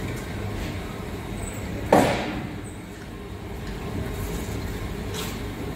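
Steady low hum in the BOPP tape slitting-rewinding machine's workshop, with one loud clank about two seconds in that rings out over half a second, as shafts loaded with slit tape rolls are unloaded from the machine.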